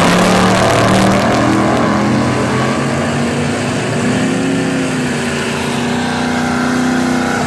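Nostalgia drag racing cars launching off the line at full throttle and accelerating down the drag strip. The engine note climbs and wavers through the run, loudest right after the launch and easing off as the cars pull away.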